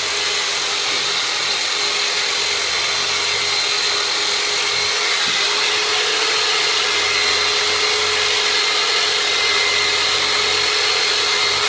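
Handheld electric massage tool running with a steady motor whine and hiss while it is worked along the shin's tibialis anterior muscle; it winds down right at the end.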